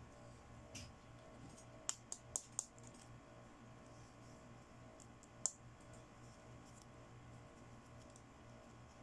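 Small plastic toy accessories clicking and tapping as they are handled: a quick cluster of four sharp clicks about two seconds in and a single click a few seconds later, over a faint steady hum.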